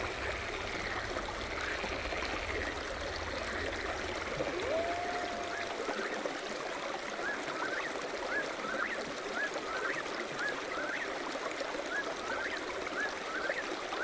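Flowing water from a stream, a steady rushing. Over it a bird calls: one longer rising note about five seconds in, then from about halfway a series of short rising notes at roughly two a second.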